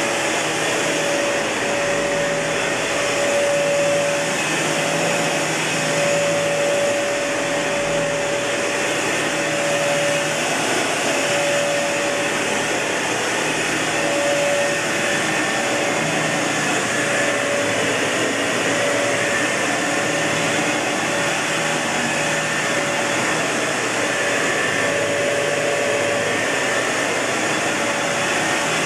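Kenmore Elite Cleva upright vacuum cleaner running steadily: a constant rush of motor and airflow noise with a mid-pitched whine that drops in and out every second or so.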